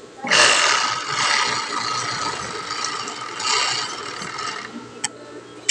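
Siruba 747 overlock sewing machine running as it stitches fabric: a fast mechanical whirr with a steady whine, starting just after the beginning and stopping about a second before the end, followed by a short click. It is an old model and somewhat noisy, being test-run after its broken rear feed dog holder was replaced.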